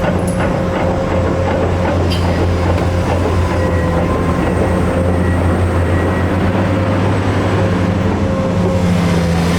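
Kobelco SK850LC crawler excavator's diesel engine running steadily, a loud low drone with a few constant higher tones over it.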